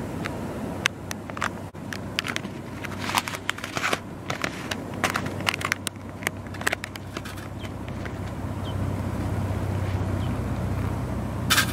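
Foil-lined Onisi alpha-rice pouch crinkling and crackling as it is opened and handled. From about eight seconds in, hot water is poured into it from a small pot.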